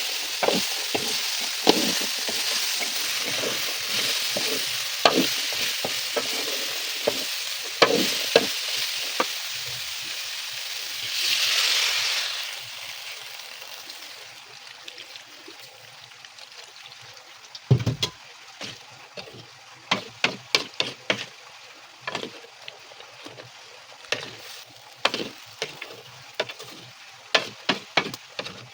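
Food sizzling in hot oil in a pan while a spatula stirs it, with scattered clicks of the utensil against the pan and a brief louder surge of sizzle. About halfway through the sizzle dies down, and a run of sharp knocks and taps follows.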